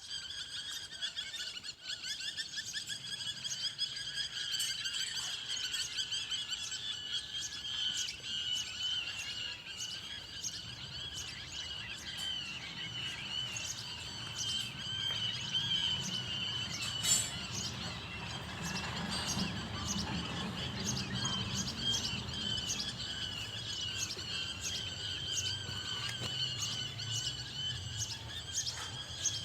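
Many small birds chirping together in a dense, continuous chorus of quick, overlapping high notes, with a single sharp click about seventeen seconds in.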